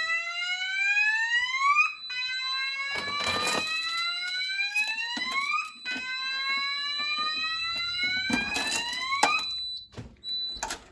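Ampac fire alarm sounder set to a 'whale tone', sounding a slow rising whoop about three and a half seconds long that repeats, with a steady high-pitched tone under it. The whooping stops near the end as the alarm is silenced, leaving the high tone in short repeated beeps.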